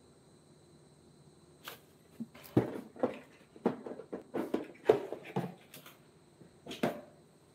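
An irregular run of short, light knocks and taps, about a dozen of them, starting a couple of seconds in and stopping shortly before the end.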